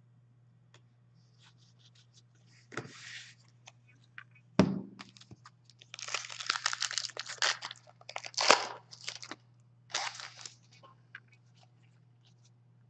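Foil trading-card pack wrappers crinkling and tearing in irregular bursts as hockey card packs are opened and the cards handled, with a steady low hum underneath.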